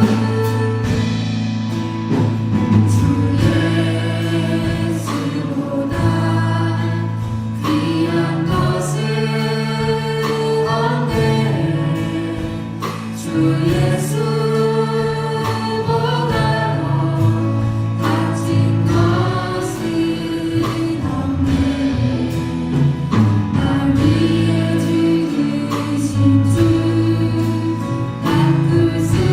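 A church praise team singing a worship song together with a band, voices in unison over a steady bass line and drum beat.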